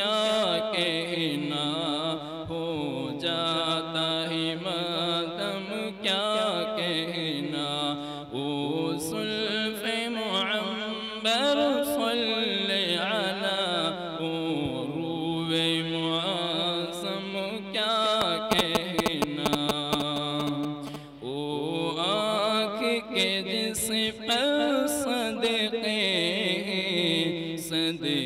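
A man's voice chanting a naat unaccompanied into a microphone, in long, wavering melodic lines with drawn-out held notes.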